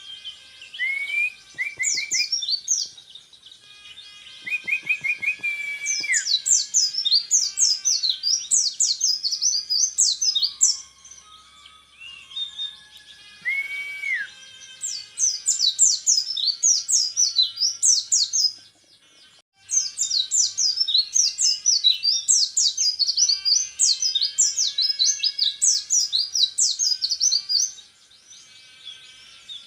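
Orange-headed thrush (peleci) singing in long rapid-fire runs of high, quickly sliding notes. The runs last several seconds, with short breaks between them and a few held, flat whistles in the breaks. This is the fast 'tembakan repet' song style that bird keepers prize in contest birds.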